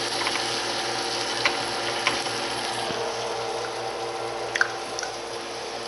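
Herring fillets frying in hot oil in a skillet: a steady sizzle with a few sharp clicks or pops, the loudest about four and a half seconds in.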